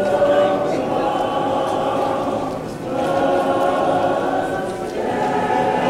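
Church choir singing, many voices together in long held notes, with new phrases starting about three seconds and five seconds in.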